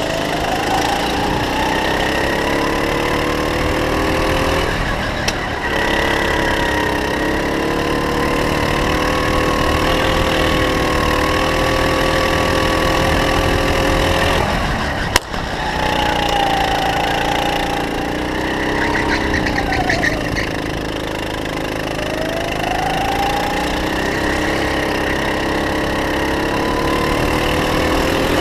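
Kart engine running at speed, heard from on board. Its pitch climbs and holds on the straights and drops and rises again through the corners. A sharp click comes about fifteen seconds in.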